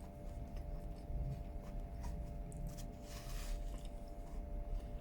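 A man chewing a mouthful of crispy chicken and fried rice, with soft mouth noises and a few faint clicks, over a steady low hum.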